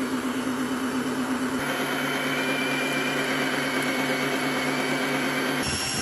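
Tineco wet-dry vacuum running its self-cleaning cycle in the docking station: a steady motor hum that changes tone about a second and a half in and again near the end.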